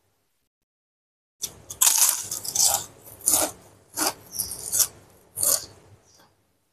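Close-miked crunchy chewing of krupuk crackers, a run of crunches about two a second starting about a second and a half in.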